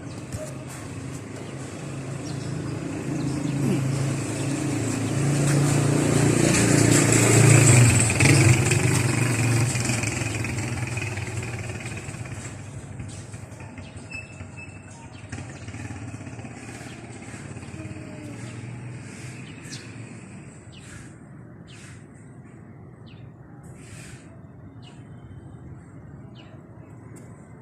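Motorcycle engine growing louder as it approaches, passing about seven or eight seconds in, then fading away. Birds chirp near the end.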